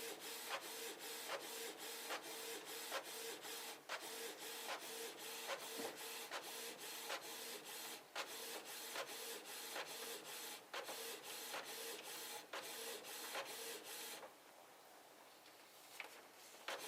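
Canon Pixma MG2520 inkjet printer running as it prints a copy: a steady hum with regular ticks about three a second. It stops about fourteen seconds in.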